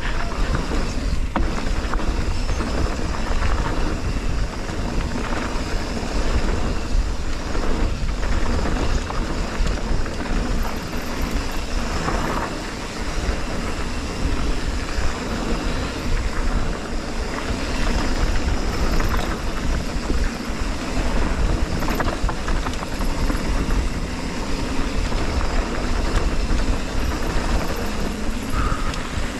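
Mountain bike riding fast down a dirt trail, heard from a camera on the rider: a steady rush of wind over the microphone and the rumble of the tyres, with occasional knocks and rattles over bumps.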